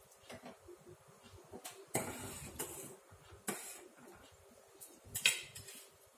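A steel ladle stirring and scraping around a stainless steel pot of milk kheer, with a few metal scrapes and clinks. The last and loudest comes about five seconds in, as the ladle is set down on a steel plate.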